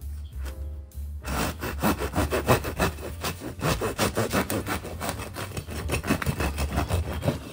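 Knife sawing through the crust and crumb of a freshly baked white loaf on a wooden board. It starts about a second in, with rapid back-and-forth strokes that go on steadily.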